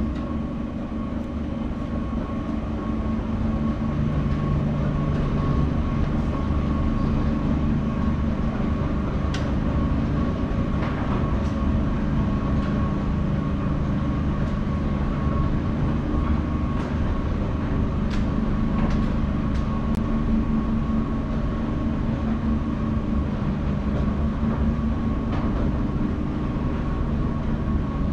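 Subway train running: a steady low rumble with a thin constant whine above it and scattered light clicks.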